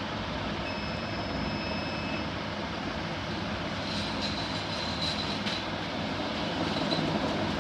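Strong wind blowing in a steady rush of noise, with a few faint high thin tones about a second in and again around four to five seconds in.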